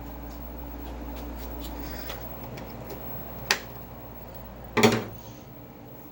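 A steady low electrical hum, then a sharp click about three and a half seconds in and a louder clunk about a second later, after which the hum drops away.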